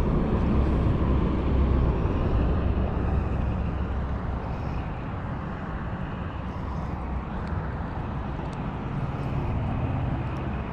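Steady low rumble of road traffic crossing the highway bridge overhead, swelling as vehicles pass, louder at first and again near the end. A few faint clicks come in the second half.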